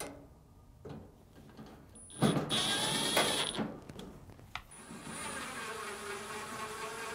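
Power screwdriver motor whining as it drives in two screws: a short run about two seconds in, then a longer one from about halfway.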